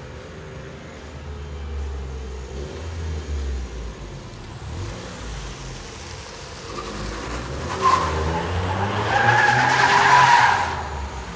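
Suzuki Carry turbo kei truck's K6A three-cylinder engine running, its pitch rising and falling, with a high squeal that starts about eight seconds in, is loudest near ten seconds, and fades shortly before the end.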